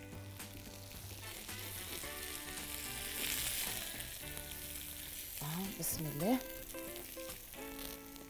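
Hot food sizzling: a steady hiss that swells about three seconds in and eases off, under light background music.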